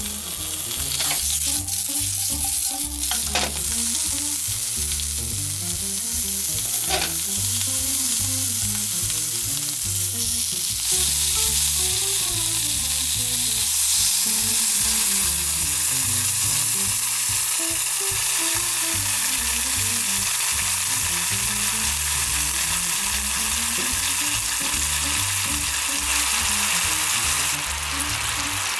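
Sausages sizzling in a dry frying pan, with a few light knocks. Partway through, water is poured in and the sizzle turns to a steadier hiss as the water boils hard around them.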